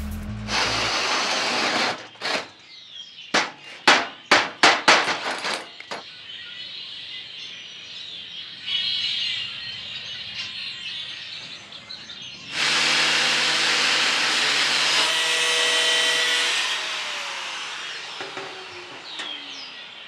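Metalworking tool sounds. A short burst of noise comes first, then about eight sharp strokes in three seconds from a hand tool. After a quieter stretch a power tool runs loudly for about four seconds and winds down with a falling pitch.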